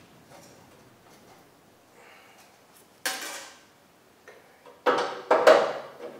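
A ratchet and socket on the bumper mounting nuts, clinking and clanking against steel. There is a sharp metal clank about three seconds in and a louder run of clanks near the end.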